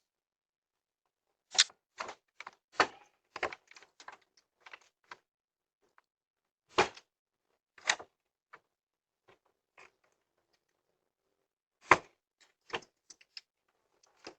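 Irregular knocks and clicks at a front door, some sharp and loud, in a cluster in the first few seconds, then single hits, then another cluster near the end, picked up by a doorbell camera's microphone.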